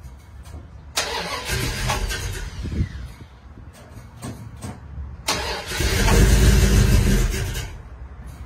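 1975 Dodge Ramcharger's V8 engine, cold, with a low rumble and two sudden loud surges. The first lasts about two seconds from about a second in; the second, longer and louder, comes about two seconds later before dropping back.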